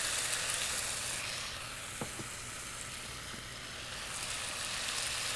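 Shrimp, shishito peppers and garlic sizzling in olive oil in a nonstick frying pan over a gas burner. The sizzle eases a little midway and builds again near the end.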